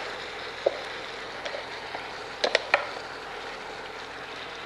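Thick ground masala paste being scraped and knocked out of a steel mixer jar into a steel pot: a spatula and the jar give a few sharp knocks, one about a second in and three quick ones around two and a half seconds in, over a faint steady sizzle from the hot pot.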